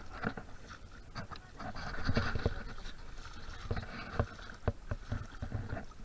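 Footsteps on a wet gravel and mud riverbank: a string of irregular short crunches and scrapes over a low steady rumble.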